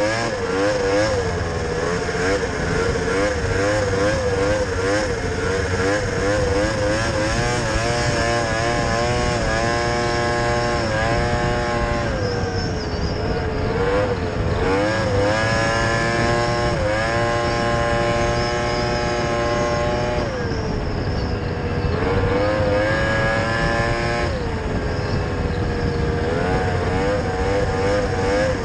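Snowmobile engine under way, its pitch wavering and then climbing and dropping several times as the throttle is opened and eased off, over a steady rushing noise.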